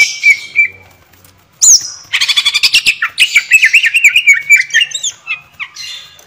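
Greater green leafbird (cucak ijo) singing a fast, varied run of whistles, chirps and squawky notes, broken by a short pause about a second in.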